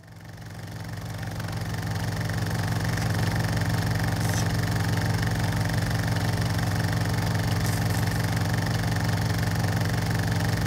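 Steady mechanical running sound, like a small motor or machine, fading in over the first two seconds and then holding even, with a fast regular flutter.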